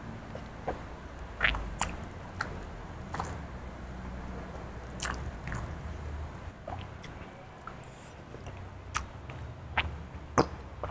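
Close-miked mouth sounds of a man drinking from a plastic bottle: sips, swallows and lip smacks, heard as scattered sharp clicks.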